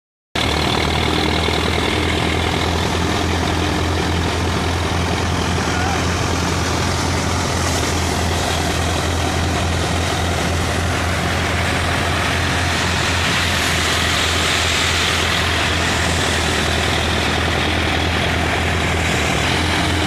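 A tractor-driven wheat thresher running steadily: the tractor's engine turns the thresher through a long PTO shaft, giving a constant low engine drone under a continuous rushing noise from the threshing machine as wheat sheaves are fed in.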